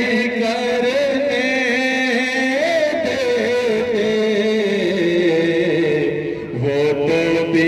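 Islamic devotional chanting: a melodic voice line, drawn out and wavering, held almost without pause. It moves to a lower pitch about five seconds in and briefly drops away just before the end.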